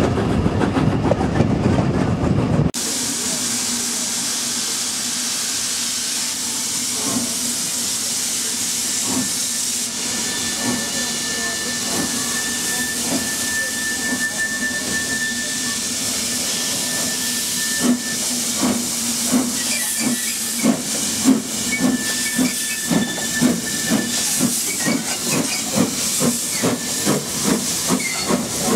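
Brief rumble of a moving train carriage, then a steam locomotive standing with a steady hiss of steam. About two-thirds of the way through, its exhaust beats start and quicken as it pulls away with its train.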